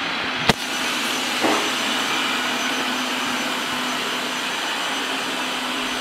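Qihoo 360 robot vacuum running on a wooden floor: the steady whir of its suction fan and brushes, with one sharp click about half a second in.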